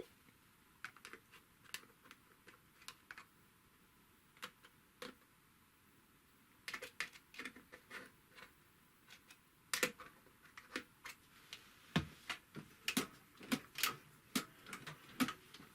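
Irregular light metallic clicks and taps from an industrial walking-foot sewing machine's mechanism being worked by hand, its middle presser-foot bar just oiled; sparse at first, then more frequent in the second half.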